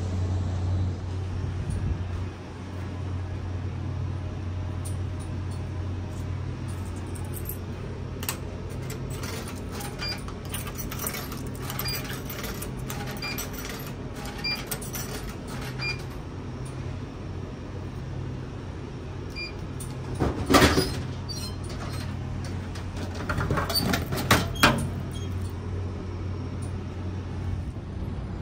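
Coins fed into a drinks vending machine with a run of small clicks, then a loud clunk about twenty seconds in as the drink drops, and a few more knocks some seconds later as it is taken out of the tray. A steady low hum of the ferry runs underneath.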